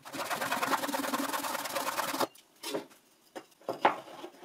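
Fine-toothed hand saw rasping through a small wooden block for about two seconds, then stopping, followed by a few light wooden knocks as the cut pieces are set down.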